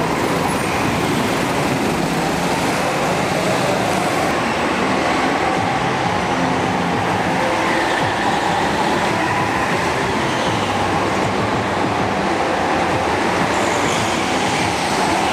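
Several go-karts lapping an indoor track: a continuous motor drone, with whining tones that slide up and down in pitch as karts speed up, brake and pass.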